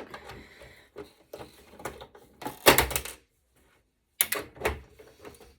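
Stuck screw posts being snapped off a circuit board: scattered clicks and clatter of metal and board, with one loud sharp snap just before three seconds in and a few more clicks near the end.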